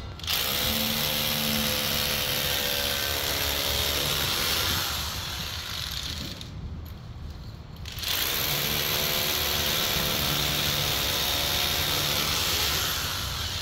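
Electric hammer drill boring into a concrete floor, running in two long runs of about four and five seconds with a short pause between them.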